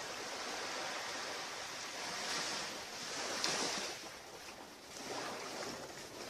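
Sea surf washing onto a beach: a steady hiss of waves that swells and falls back a few times.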